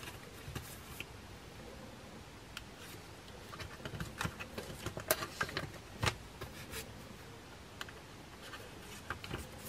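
Faint rustling and scattered soft clicks of Polaroid photocards being handled and slid into clear plastic binder sleeve pockets, with a few sharper ticks about four to six seconds in.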